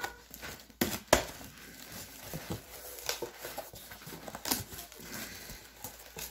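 Cardboard box being opened: packing tape slit and torn along the seam, then the cardboard flaps pulled back with rustling. There are two sharp snaps about a second in.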